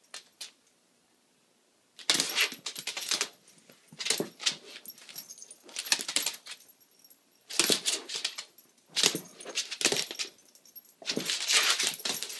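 A small white fluffy dog and a large black dog play-fighting, in about six short noisy bursts of dog vocalizing and scuffling starting about two seconds in, with a jangle like collar tags.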